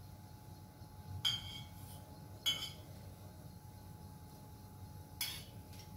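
A small stainless-steel bowl clinks lightly against a frying pan three times while mustard oil is poured from it, about one, two and a half and five seconds in, each clink ringing briefly over a low steady hum.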